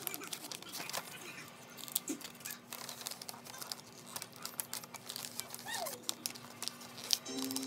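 Paper gift bag and tissue paper crinkling and rustling in irregular crackles as hands work at the bag's opening, over a faint steady hum. Music starts near the end.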